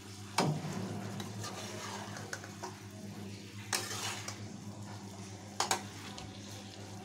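A spatula stirring and scraping through a thick egg curry in a pan, with sharper knocks against the pan about half a second in, near four seconds and near six. A steady low hum runs underneath.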